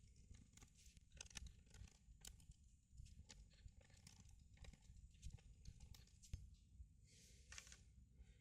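Faint, irregular clicks, taps and scrapes of hands handling laptop parts during disassembly, with a brief rustle or scrape about seven seconds in.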